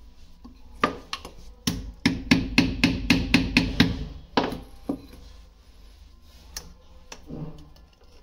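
Rapid series of hammer blows, about four a second for some four seconds, loudest in the middle of the run, then stopping.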